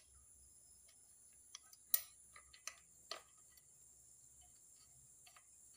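A few small, sharp clicks and taps of metal and plastic parts, the loudest about two seconds in: the throttle cable being hooked back onto a brush cutter's carburetor linkage.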